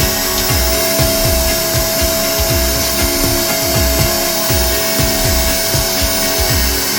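Yato YT-85705 workshop and ash vacuum cleaner running at full power: a steady rush of air with a steady motor whine. Background music with a regular beat plays underneath.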